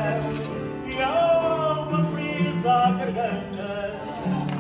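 A man singing long, wavering held notes to Portuguese guitar and guitar accompaniment, in the style of live fado.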